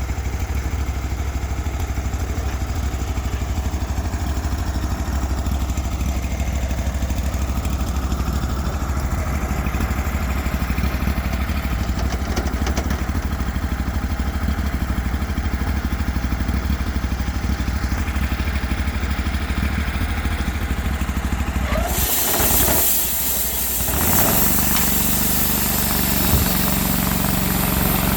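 Cook's MP32 sawmill's engine running steadily with a strong low throb. About 22 seconds in the sound dips briefly and changes abruptly to a steadier, higher hum with more hiss.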